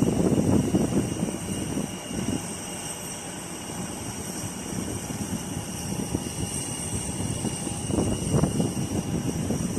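Small aircraft's engine running, a rough low rumble with steady high-pitched whine tones above it. It eases off about halfway through and grows louder again near the end.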